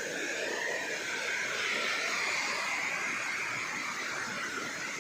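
Steady rush of a waterfall, falling water making an even hiss.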